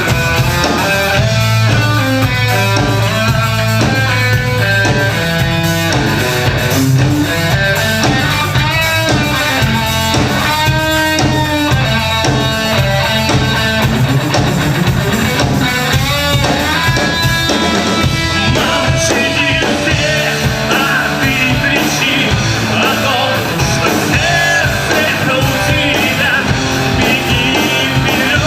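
Rock band playing live: electric guitar and drum kit over a steady bass line, with a melody line gliding in pitch above.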